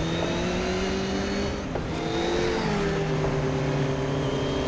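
Motorcycle engines running and revving, several pitches drifting up and down together and shifting about two seconds in.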